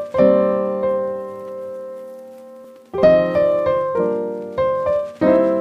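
Background piano music: a chord struck just after the start and left to ring out for nearly three seconds, then a new chord and a series of notes about every half second.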